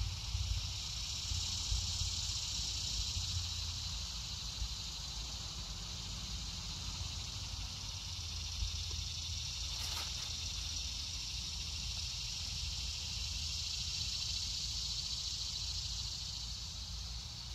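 Steady, high-pitched chorus of summer insects, with a low rumble underneath and a brief click about ten seconds in.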